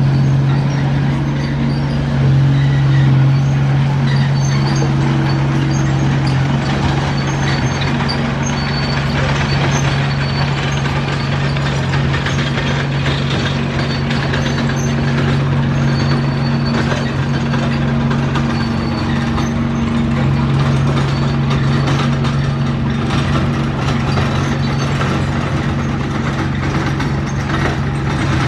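Bulldozer's diesel engine running steadily at working speed, a constant low drone with light rattles on top.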